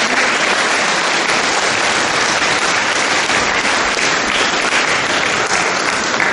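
Audience applauding steadily: a dense, even clapping.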